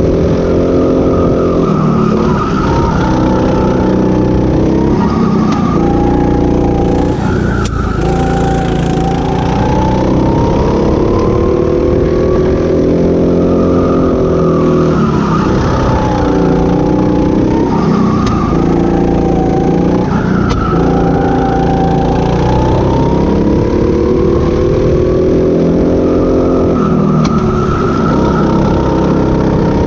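Go-kart engine heard from the driver's seat, its pitch climbing on each straight and dropping back as the driver lifts for the corners, several times over.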